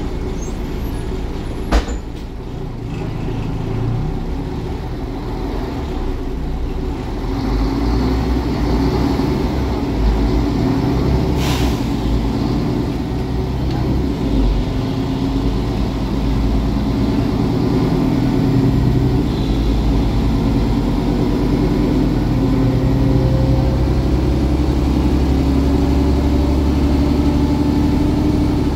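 Cabin sound of a Mercedes-Benz Conecto G articulated city bus under way: its 12-litre OM 457 LA inline-six diesel, driving through a ZF Ecomat six-speed automatic, drones steadily with road noise. The engine note rises gradually in pitch in the second half as the bus picks up speed. A sharp click comes near two seconds in, and a brief hiss a little after eleven seconds.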